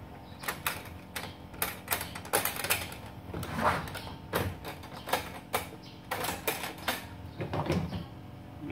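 Side latches of a stacked trolley tool box being snapped open and the top box lifted off its stack, giving a string of irregular clicks and clacks.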